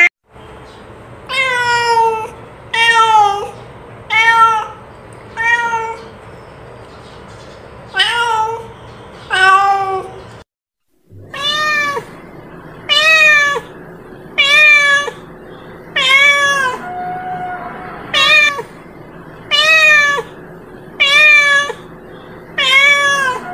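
Domestic cat meowing over and over, one drawn-out meow about every second and a half, each rising and then falling in pitch. About ten seconds in the sound drops out briefly at a cut, then the meowing picks up again in the same steady rhythm.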